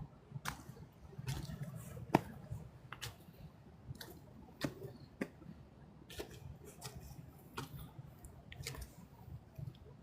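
Footsteps crunching through dry fallen leaves on a trail: a string of irregular sharp crackles and crunches, about one or two a second.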